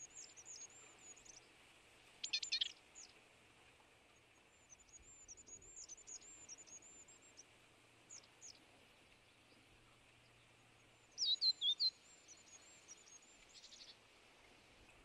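Small songbirds chirping and calling: thin, high chirps in short runs, with two louder bursts of calls about two seconds in and again about eleven seconds in, over a steady faint hiss.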